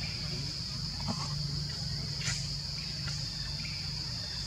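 Forest insects droning steadily at one high pitch, over a low steady hum, with a faint tick about two seconds in.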